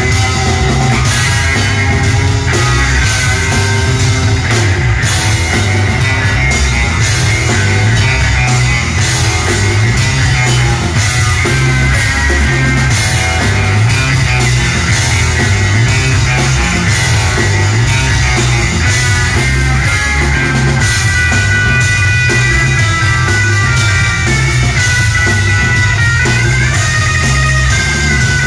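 Live rock band playing loud: two electric guitars over a drum kit, with a steady beat and a held, sliding guitar melody line.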